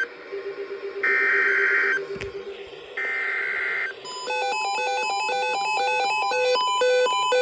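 Emergency Alert System SAME header: bursts of digital data tones about a second long, repeated at one-second gaps, the last noticeably softer. From about four seconds in, a rhythmic electronic alert melody of several stepping beeps starts and repeats.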